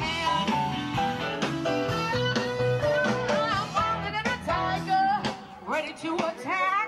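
Blues music with guitar and a singing voice.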